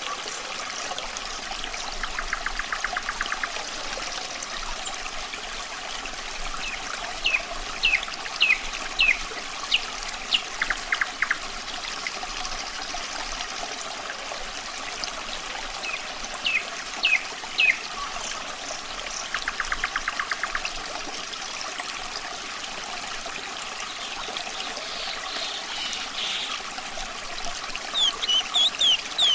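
Running water trickling and pouring steadily, with a nightingale singing at intervals over it. Its song comes as fast, rattling trills and short runs of quick whistled notes, and grows busier near the end.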